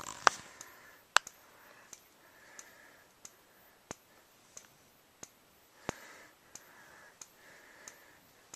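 Wheelock MT fire alarm strobe flashing, with a sharp click at each flash about every two-thirds of a second and a faint high-pitched whine rising after each one as it recharges. Two louder clicks come in the first second or so.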